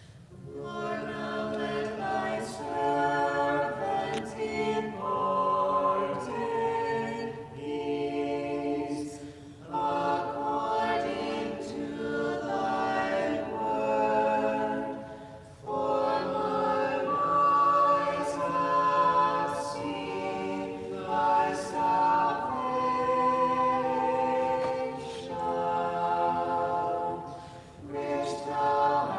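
Church choir singing an Orthodox vespers hymn a cappella in several-part harmony, in phrases with short breaks between them.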